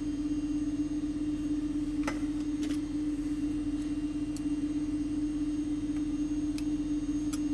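A steady low electrical-sounding hum with a few light clicks of small tools being handled, about five in all.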